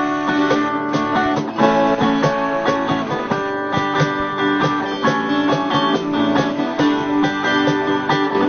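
Background music: acoustic guitar being strummed and plucked.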